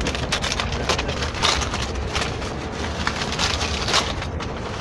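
Brown paper bedroll packet being torn open and crumpled by hand, a quick run of paper crackles, over the steady low rumble of a moving train coach.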